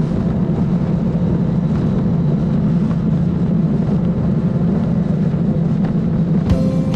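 Motorcycle riding at highway speed, heard from a camera mounted on the bike: a steady, loud engine and road rumble mixed with wind noise. Music comes in near the end.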